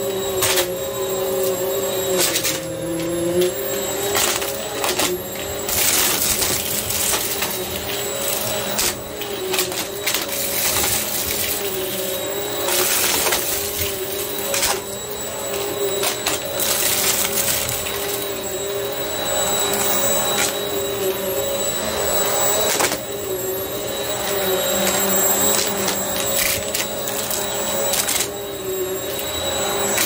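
Upright bagless vacuum cleaner running on carpet, its motor hum steady but wavering slightly in pitch as it is pushed. Frequent short bursts of rattling and crunching come through it as it sucks up scattered debris into its bin.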